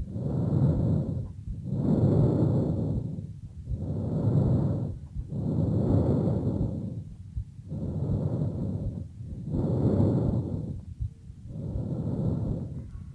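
Laryngotracheal (bronchial) breath sounds heard through a stethoscope: a rushing breath noise that swells and fades roughly every two seconds, about seven times. This is the breathing normally heard over the larynx and trachea.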